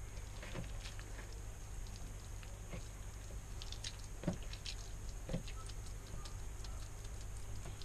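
Hands kneading and squeezing a moist mash of potato, egg and ham in a plastic bowl: faint, irregular wet squelches and soft ticks, two of them a little louder in the middle, over a low steady hum.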